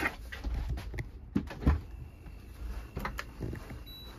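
Knocks and clicks of handling as a small household fridge's door is pulled open and an infrared thermometer is picked up, the loudest knock about two seconds in, over a steady low hum. A short high beep near the end.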